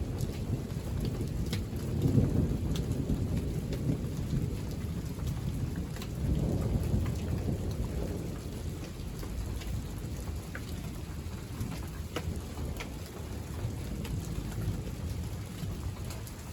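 Thunderstorm: low thunder rumbling, swelling about two seconds in and again around six to seven seconds, over steady rain with scattered drops ticking.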